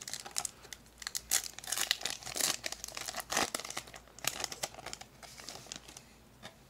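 Foil Yu-Gi-Oh! booster pack wrapper torn open and crinkled by hand: a quick run of sharp crackles that thins out after about four seconds as the cards are slid out.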